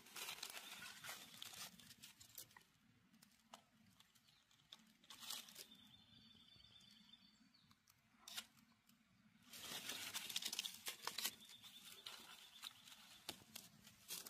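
Dry fallen leaves and pine needles rustling and crackling as a gloved hand brushes through them, in irregular short bursts, the loudest stretch about ten seconds in.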